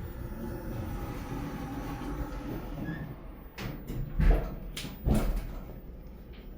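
ThyssenKrupp elevator running with a steady hum, then its sliding doors moving with a series of clunks and knocks in the second half.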